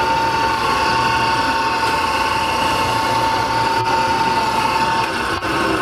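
Electric meat slicer running with a steady motor whine as prosciutto is sliced; the whine stops about five seconds in.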